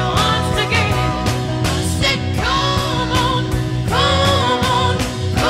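Background music: a song with a singing voice over bass and a steady drum beat.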